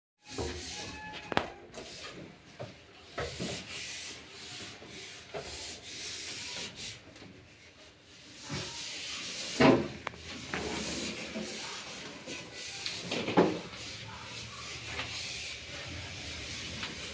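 Plastic pipe and electric cable of a submersible pump scraping and rubbing as they are fed by hand down a borewell, with a few sharper knocks.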